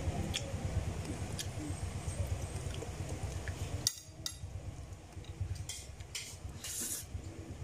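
Light clinks and taps of a spoon and fingers against plates as a meal is eaten, over a steady low background hum; one sharper click about four seconds in.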